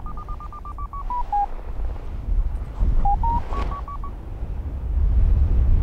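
Paragliding variometer beeping in a thermal. Quick high beeps step down in pitch and stop about a second and a half in, as the lift fades. About three seconds in they start again, stepping up in pitch as the climb picks up, over a low rumble of wind on the microphone.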